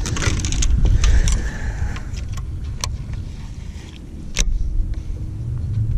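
Gusty wind rumbling on the microphone, with clicks and knocks from a baitcasting rod and reel being picked up off the boat deck and handled. One sharp click stands out a little past four seconds in.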